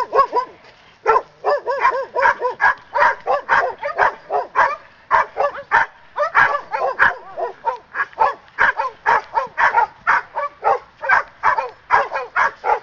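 Poodle barking over and over in fast runs of about three barks a second, with a brief pause about a second in. These are aggressive barks at a decoy during attack training on the leash.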